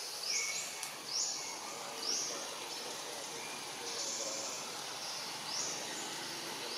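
Insects calling in the forest canopy: a high buzzing call that rises in pitch and repeats about once a second, over a steady background hiss, with faint chirps lower down.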